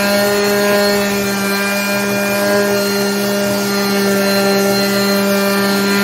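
Skil 280-watt orbital finishing sander running at a steady pitch as it sands plywood, with a vacuum cleaner hooked to its dust port also running.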